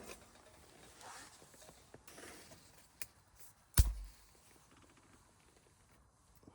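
Camp gear being handled by hand: a few sharp clicks and knocks with some rustling, and one heavy thump a little before the middle that is the loudest sound.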